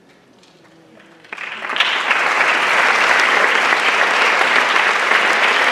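Audience applauding: a few scattered claps about a second in, quickly swelling into full, steady applause.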